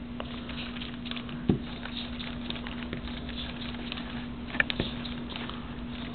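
Light, irregular clicking and rustling of Lego pneumatic parts and plastic tubing being handled, with a knock about a second and a half in and a few sharp clicks near the end, over a steady low hum.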